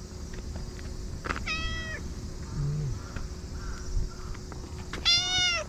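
Cat meowing twice: a short meow about one and a half seconds in, then a louder, longer meow near the end.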